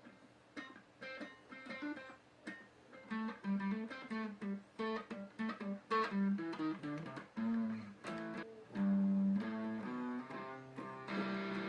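Guitar being played: a few single plucked notes at first, then a quicker run of notes, and fuller strummed chords near the end.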